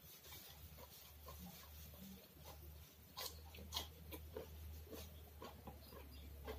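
A person chewing food with the mouth open: faint, irregular wet smacks and clicks, a few louder ones about three and four seconds in, over a steady low hum.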